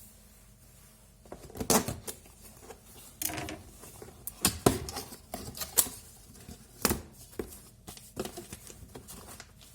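Immersion blender's packaging being opened and handled: an irregular run of sharp knocks and clicks with rustling between them.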